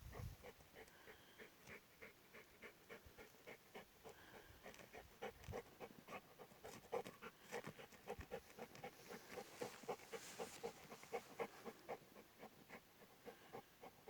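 A dog panting rapidly and rhythmically, fairly faint.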